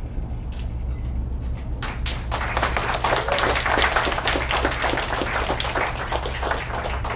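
A small crowd of wedding guests applauding, starting about two seconds in, over a steady low hum. The applause greets the end of the groom's vows.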